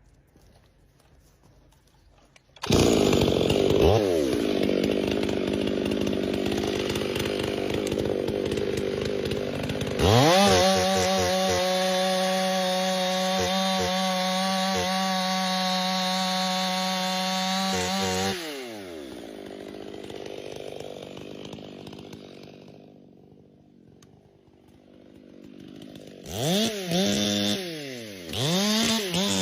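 Gas chainsaw cutting a tree. It starts loud about three seconds in and runs at high revs, swings up to a steady full-throttle whine about ten seconds in, then drops back to a lower idle. Near the end it is revved in several short blips.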